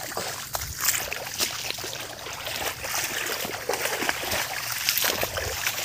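Shallow forest stream trickling over leaf litter, a steady wash of running water with scattered small clicks and rustles.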